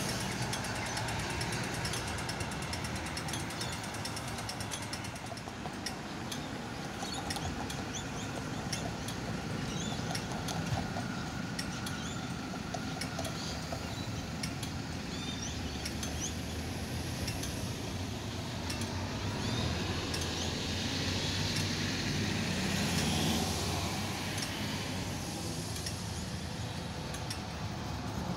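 Street traffic: cars and motorcycles passing on a city road, then a Melbourne Z3-class tram approaching along the tracks and passing close near the end, the sound growing louder as it arrives.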